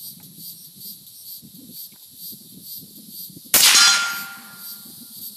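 One shot from a Rhino Arms RA-5R .308 rifle through its integral Liberty Cans Leonidas suppressor, firing full-power 7.62 mm 147-grain full metal jacket ammunition, about three and a half seconds in. The report cuts in sharply and dies away over about a second, leaving a thin ringing tone that fades near the end.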